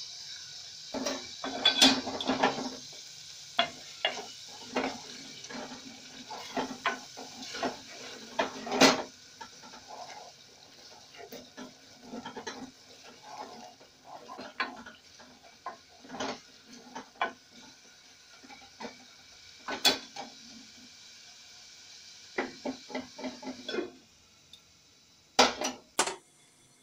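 Wooden spoon stirring and knocking against an aluminium cooking pot over a steady sizzle of thick tomato-and-spice beef stew. Near the end the aluminium lid goes on with a couple of sharp clanks and the sizzling drops away.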